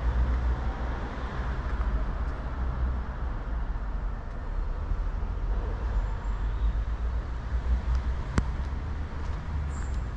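Steady low vehicle rumble, with one sharp click about eight seconds in.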